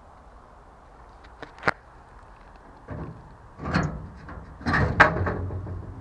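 Two sharp metallic clicks about a second and a half in as the padlock on a steel transformer-kiosk door is handled. Then comes heavier rattling and scraping as the steel door is pulled open, loudest about five seconds in.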